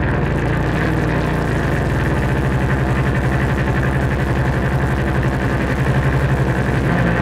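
Live noise music played on tabletop electronics: a loud, fast-pulsing low drone with a dense buzz above it, the low part shifting in pitch near the end.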